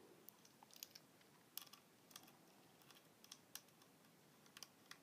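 Near silence broken by faint, irregular small clicks: a precision screwdriver turning tiny mounting screws into the side of a Crucial MX100 2.5-inch SSD's metal casing.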